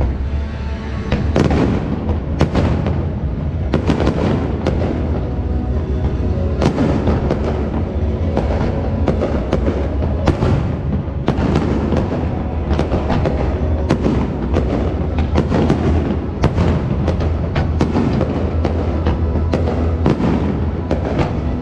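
Fireworks bursting in rapid succession, one sharp bang after another every fraction of a second, over music.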